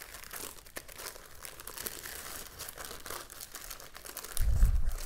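Tissue paper rustling and crinkling as it is pulled out and unfolded from around a wallet, with a dull low thump near the end.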